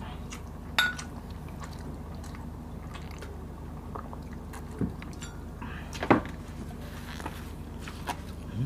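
Two glass water mugs clinking together in a toast about a second in, then small drinking and hand-eating sounds with a louder knock about six seconds in, over a steady low hum.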